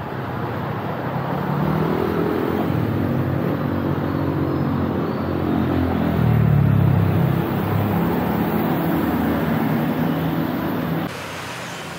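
Road traffic with a motor vehicle engine running close by, its low drone shifting in pitch and loudest a little past halfway. Near the end it cuts abruptly to a quieter, even traffic hum.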